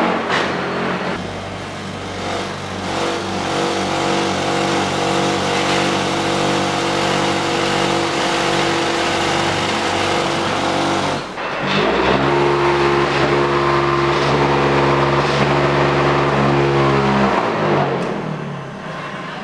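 Electric motors of an automatic hydraulic concrete block-making line running with a steady hum. About twelve seconds in a louder motor spins up, runs for about five seconds and winds down.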